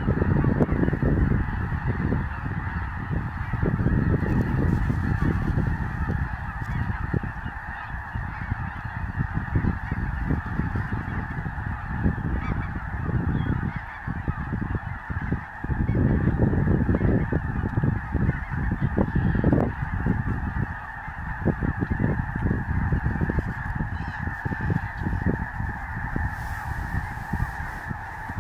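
A huge flock of snow geese calling all at once, a dense, unbroken din of honks with no single call standing out. An irregular low rumble swells and fades underneath.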